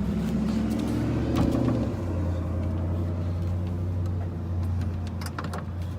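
Car engine idling steadily while an electric pop-up headlight motor whirs in the first couple of seconds. A quick run of clicks comes near the end.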